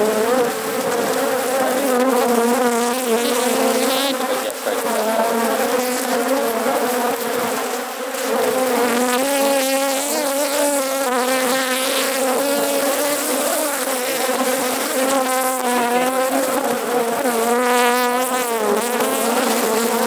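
Honeybee colony buzzing: a loud, steady hum whose pitch wavers up and down.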